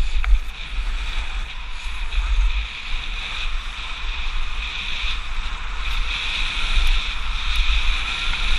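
Wind buffeting the microphone of a skier running downhill, with the steady hiss of skis sliding over packed snow.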